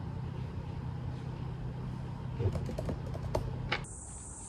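A few scattered clicks of typing on a laptop keyboard over a low steady hum. Near the end a steady high-pitched insect chorus starts and takes over.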